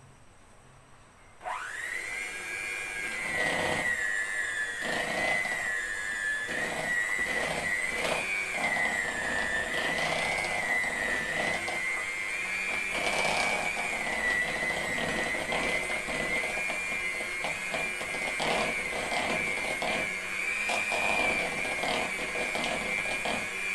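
Handheld electric mixer switched on about a second and a half in, its motor whining steadily with a slight waver in pitch as the beaters whip a shortening-and-milk frosting, with frequent light knocks of the beaters against the bowl. It stops just at the end.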